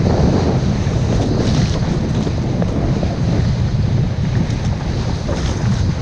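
Steady, loud wind buffeting a microphone over the rush and hiss of a kiteboard planing across choppy sea, with brief swells of spray.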